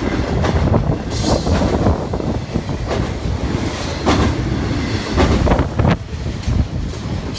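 Intermodal freight train's flatcars, loaded with highway trailers, rolling past at close range: a steady low rumble of wheels on rail with repeated clacks over the rail joints, easing off after about six seconds as the last cars go by.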